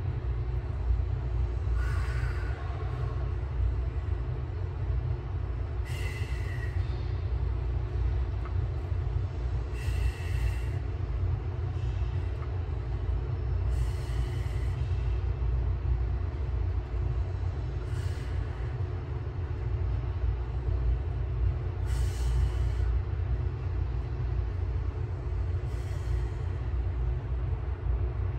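Steady low ventilation rumble with a faint hum, broken by a short hissing burst about every four seconds.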